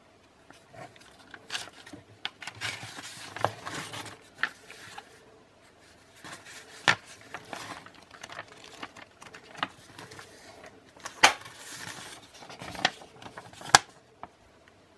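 Unpacking handling noise: irregular clicks, knocks and rustling as the bench grinder's parts and packaging are picked up and set down. The sharpest knocks come near the end. The grinder is not running.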